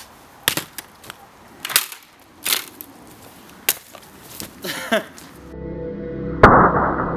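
A handful of sharp cracks and knocks, about one a second, from the smashed plastic digital alarm clock being stomped and trampled. About five seconds in this gives way to music with a deep steady drone and one loud hit a second later.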